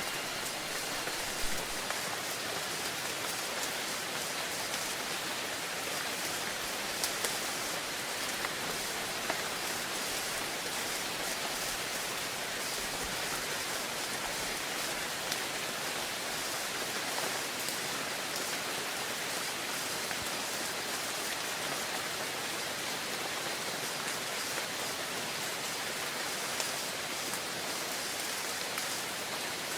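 Steady rain falling: an even hiss with occasional louder drop ticks. A faint ringing tone fades out in the first second or two.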